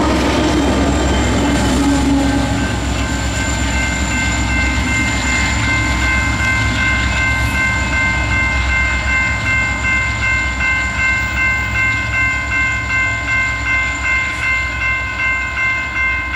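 BNSF freight train's rear diesel locomotives rumbling past and pulling away, with wheel and rail noise. From a few seconds in, a crossing bell rings steadily at about two strikes a second.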